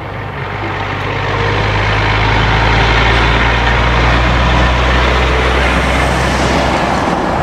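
Container truck's diesel engine running with a steady low hum under road noise, growing louder over the first two seconds and then holding steady.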